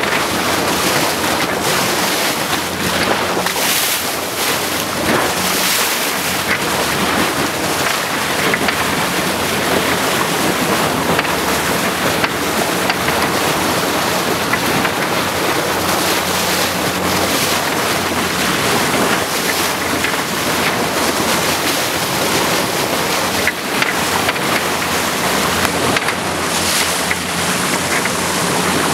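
Boat under way on open water: steady wind buffeting the microphone and water rushing past the hull, with a low steady engine hum underneath.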